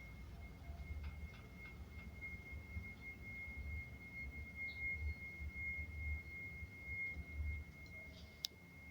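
A faint, steady, high-pitched electronic tone that holds one pitch throughout: the unexplained noise being tracked down in the building. A low rumble runs underneath, and there is a single sharp click near the end.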